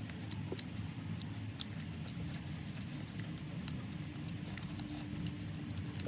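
A person chewing food close to the microphone: scattered small wet clicks and smacks several times a second, over a steady low rumble.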